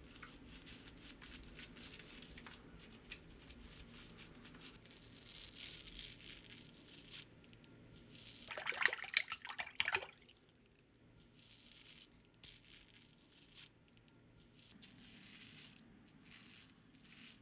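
Faint scattered clicks of a computer mouse and keyboard over a low room hum. A quick run of clattering clicks about nine seconds in is the loudest part.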